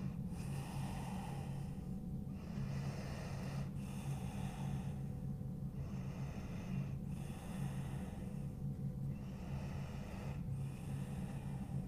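A woman breathing deeply and slowly, in and out, each breath lasting a second or two, over a low steady hum.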